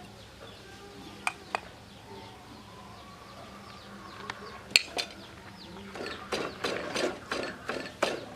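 Kitchen utensils clinking and knocking now and then, the loudest knock near the middle, then a quicker run of knocks at about four a second over the last couple of seconds. Birds chirp faintly in the background.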